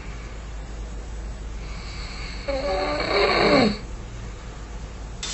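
A man snoring in his sleep: one long snore starting about two seconds in, its pitch falling as it ends. A nose-plug anti-snoring device is in his nose and does not stop the snoring.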